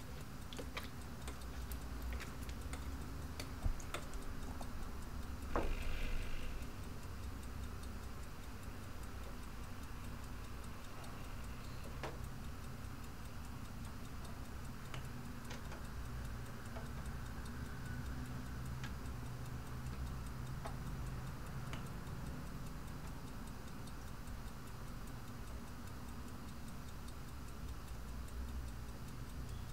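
A clock ticking over a steady low hum, with scattered sharp clicks and a brief louder noise about six seconds in.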